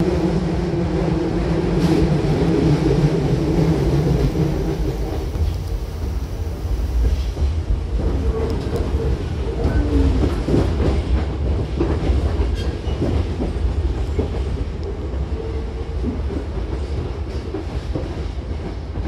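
Hankyu commuter train heard from inside the car as it pulls alongside a platform: a steady low rumble with wheel clatter over rail joints. A motor hum dies away about five seconds in.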